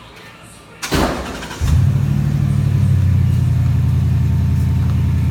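Swapped-in V8 engine of a 1954 Chevrolet 3100 pickup, heard through its home-built exhaust. The engine is cranked about a second in, catches about half a second later and settles into a loud, steady idle with a deep rumble.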